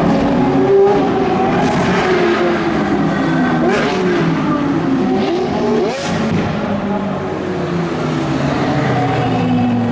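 Several Lamborghini supercar engines accelerating and passing down a pit lane, their notes overlapping. Twice the revs climb sharply and break off, about four and six seconds in.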